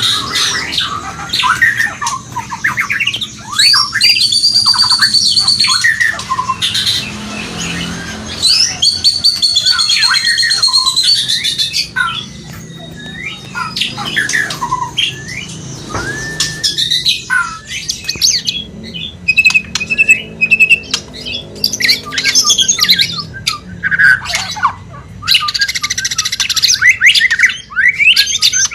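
White-rumped shama (murai batu) breeding calls: a loud, varied run of harsh squawks, fast chattering trills and high whistles. This is the mating call of a bird in breeding condition, used as a lure to bring other shamas into breeding mood.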